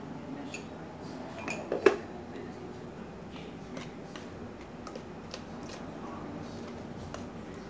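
Wire whisk clinking and scraping against a stainless steel mixing bowl while stirring flour into a thick batter. Scattered light clicks, with a sharper, louder clatter about two seconds in.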